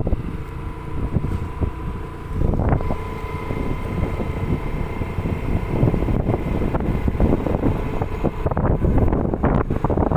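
Wind buffeting the microphone with a loud, fluttering low rumble, and a faint steady whine running under it.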